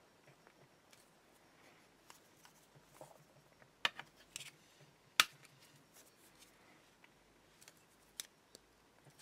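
Scattered sharp clicks and taps of a small black plastic battery holder and rechargeable cells being handled and fitted together, with two louder clicks about four and five seconds in.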